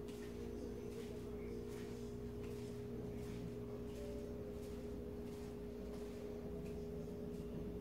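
A steady, faint electrical-sounding hum of two held tones, with a few faint soft taps.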